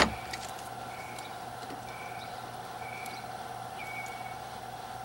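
A bird repeating a short, even-pitched chirp about once a second over a steady hum, with a sharp knock right at the start and a few faint clicks.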